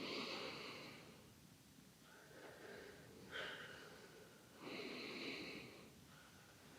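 Hands gliding over skin during a back massage: soft swishing strokes, two of about a second each and a shorter one between them.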